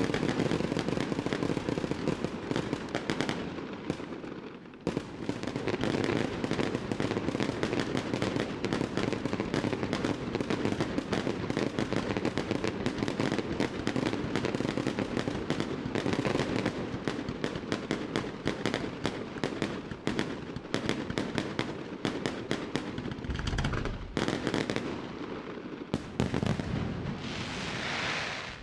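Fireworks display: a dense, continuous barrage of rapid bangs and crackles that thins briefly about four seconds in, with deep booms and a swelling hiss near the end.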